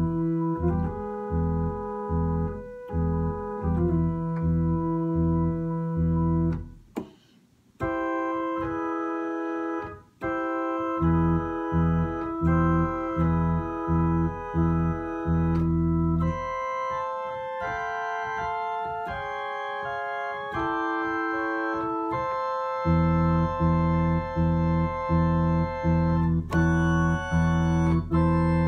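Organ playing slow sustained chords over deep bass notes repeated about twice a second. It pauses briefly about seven seconds in. The bass drops out for several seconds in the middle, leaving only the upper chords, then comes back, and higher notes join near the end.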